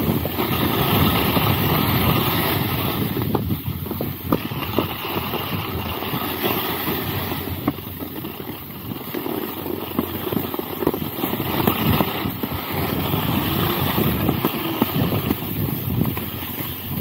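Skis sliding and scraping over packed snow, with wind buffeting the microphone; a few light clicks partway through.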